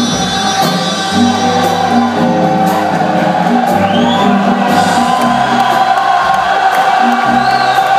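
Live band playing Latin-jazz and ska music: a moving bass line, congas and keyboards, with several voices singing together over it.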